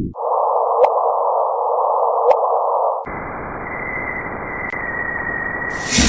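Electronic 'planet sound' sonification: a steady hiss with a single held tone beneath it and a couple of faint clicks. About three seconds in it cuts abruptly to a wider, higher hiss carrying a steady high whistle tone.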